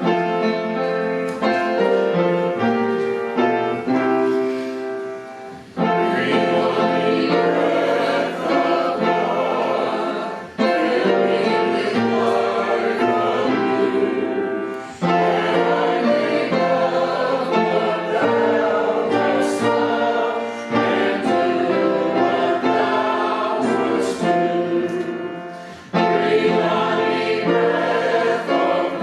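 A church congregation singing a hymn with instrumental accompaniment, phrase by phrase with brief pauses between lines.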